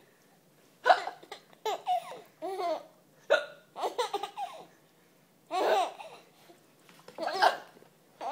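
A woman hiccuping, and a young child giggling in several short bursts with brief pauses between them, laughing at the hiccups.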